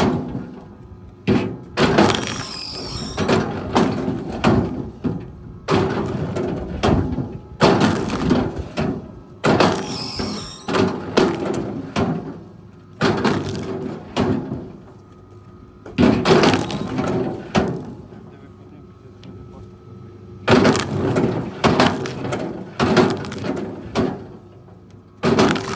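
Wood cracking and splintering in repeated spells of several seconds as a heavy machine breaks up timber, with quieter lulls between them and an engine running steadily underneath.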